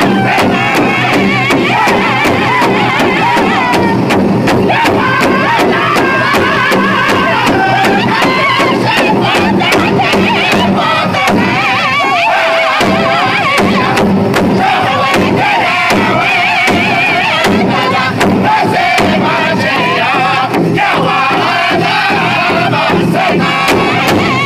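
Powwow drum group: several men singing a traditional song together in high voices over a steady unison beat on a large hide-headed powwow drum struck with beaters.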